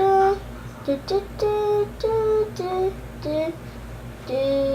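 A person humming a tune in a string of short held notes, ending on a longer held note near the end.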